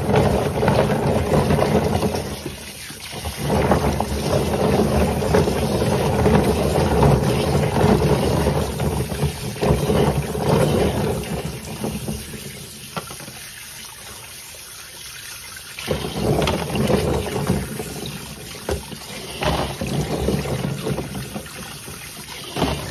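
Kitchen tap running onto chestnuts in a plastic colander while hands rub and turn the nuts in the water, with steady splashing. The splashing drops away briefly about three seconds in and again for a few seconds around the middle.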